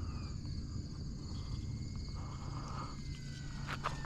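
Faint whine of a small electric RC plane's motor, its pitch sliding slowly down as the throttle is eased off on the landing approach.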